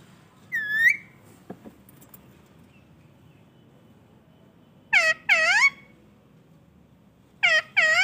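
Rose-ringed parakeet (Indian ringneck) giving short, loud calls, each dipping and then rising in pitch: one about half a second in, a pair about five seconds in, and another pair at the end. A couple of faint clicks come just after the first call.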